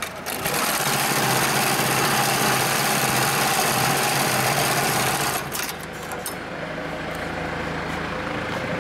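HighTex 72600PLK2S heavy-duty cylinder-bed programmable pattern sewing machine stitching a pattern through thick polypropylene webbing for a big-bag handle loop at high speed. It starts about half a second in and stops after about five seconds, leaving a lower steady hum.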